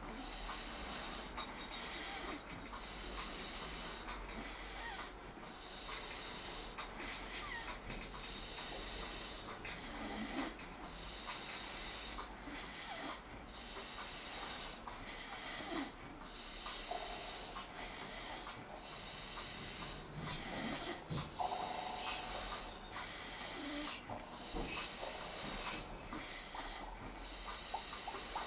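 A sleeping man snoring and breathing heavily. A hissing breath comes about every two seconds in a steady rhythm.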